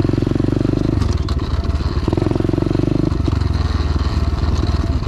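125cc single-cylinder four-stroke pit bike engine running hard while being ridden on a dirt trail, its note shifting with throttle about a second in and again near three seconds.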